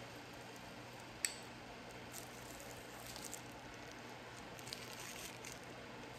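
A metal spoon clicking sharply once against a ceramic bowl about a second in, then a few softer clicks as filling is scooped, over a faint steady hum.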